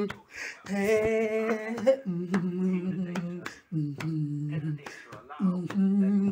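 A man's voice singing unaccompanied: several held, wavering notes without clear words, in short phrases with gaps between them. Sharp clicks come here and there between the phrases.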